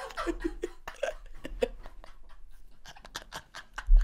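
Two men laughing almost silently and helplessly: many short gasps and wheezes with a few brief squeaks of laughter. A louder thump comes near the end.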